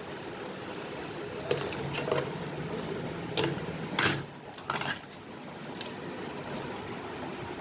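A handful of sharp clicks and knocks from hard objects being handled, the loudest about four seconds in, over steady background noise.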